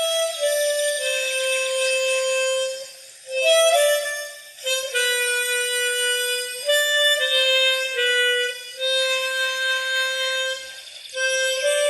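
Instrumental music: a slow melody of long held notes on a reedy wind instrument, in phrases broken by short pauses about three seconds in and near the end.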